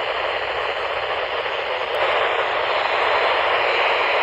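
Weather radio receiver hissing with static and no broadcast voice coming through: a steady, thin hiss that gets a little louder about two seconds in.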